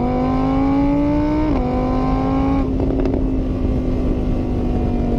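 A motor running with a whine that climbs in pitch, drops back about a second and a half in, then holds a steady pitch.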